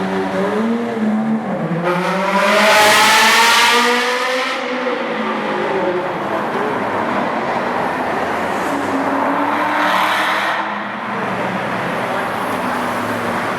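Sports car engines running; one car accelerates hard, its engine note climbing steeply a couple of seconds in, the loudest moment, with a second smaller surge of revs later on.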